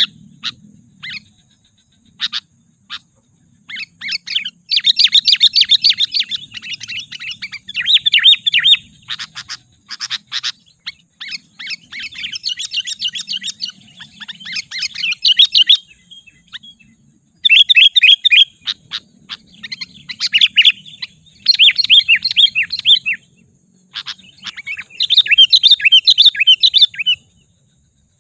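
Sooty-headed bulbul (kutilang) calling in bursts of quick, bubbly chattering notes. Each phrase lasts a second or two, with short pauses between them.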